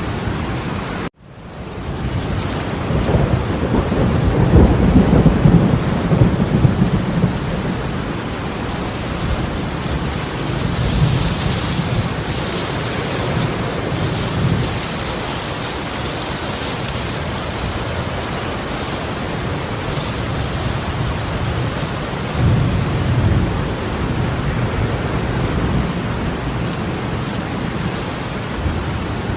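Torrential rain pouring down in a steady, dense hiss, with deep rumbles swelling up twice, first a few seconds in and again near the end. The sound drops out for a moment about a second in.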